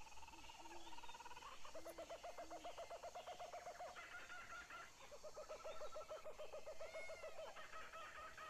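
Faint wild birds calling: a fast pulsing trill comes twice, each about two seconds long, with higher whistled notes over it.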